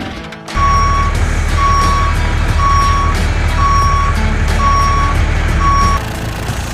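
Truck's reversing alarm beeping six times, about once a second, over a steady low engine rumble that cuts off abruptly near the end.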